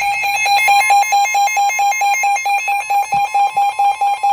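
Emergency Alert System alert tone between two warning messages: a loud, rapidly pulsing electronic beep, with a steady higher tone joining about a second in.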